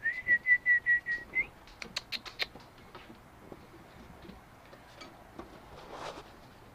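A steady high whistle-like tone held for about a second and a half, flicking upward at the end, followed by a quick run of light taps and clicks: puppies' paws and claws on wooden deck boards.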